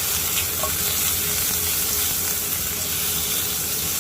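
Pork belly sizzling steadily as it fries in a hot frying pan, with a faint tick or two of the meat being moved around.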